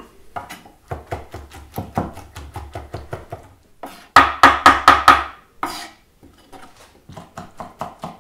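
Chef's knife rapidly chopping cooked duck livers on a wooden chopping board, about five strikes a second. The strikes are loudest in a burst near the middle, stop for about a second, then start again more lightly near the end.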